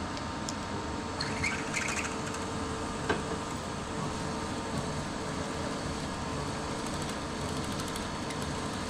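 Precision Matthews PM-25MV benchtop mill running steadily, with a few light metallic scrapes about a second or two in and a single sharp click about three seconds in.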